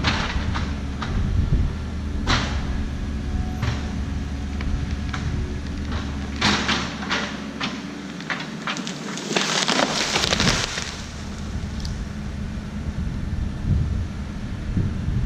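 Backhoe engine running under load while wood cracks and snaps as trees and branches are pushed over, with a longer burst of crashing, splintering branches about nine to ten seconds in.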